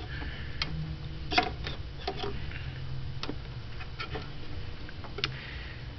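Small plastic wiring connectors and wires being handled, giving scattered sharp clicks and light taps at irregular moments, with a steady low hum underneath.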